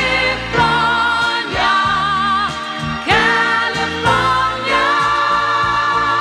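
A woman singing a pop song over instrumental accompaniment, holding long notes with vibrato.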